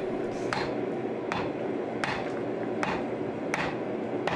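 Hand hammer striking a red-hot Damascus (1084/15N20) steel axe head on the anvil, six evenly spaced blows a little under a second apart, over a steady background hum.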